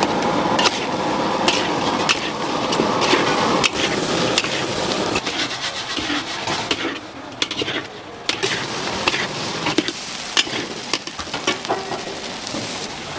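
Street-food stall kitchen work: rubbing and scraping of utensils with scattered sharp knocks and clicks over a steady hiss.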